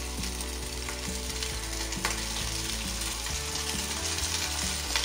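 Diced country ham (lardons) sizzling as it drops into hot olive oil in an enamelled cast-iron casserole: a steady frying hiss, with a small knock about two seconds in.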